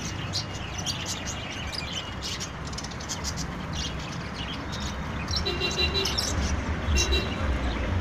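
Caged lovebirds and budgerigars chirping and twittering: many short, high chirps overlapping, with a few longer, buzzier calls a little past halfway.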